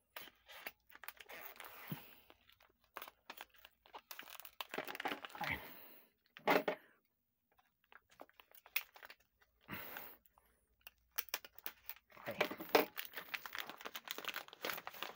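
Plastic shrink-wrap crinkling and tearing as it is slit with a utility knife and pulled off a stack of books, in irregular rustles with a few sharper clicks.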